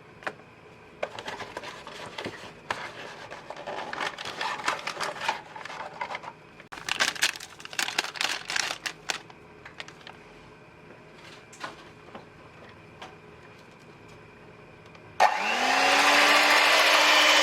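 Rustling and clattering as the cream is prepared, then an electric mixer switches on about fifteen seconds in. Its whir rises quickly to a steady speed as it whips cold milk with Chantilly whipped-cream powder.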